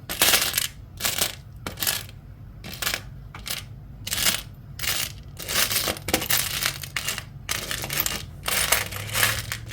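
Small metal charms clinking and jingling against each other as they are sifted through by hand: a run of irregular sharp clinks.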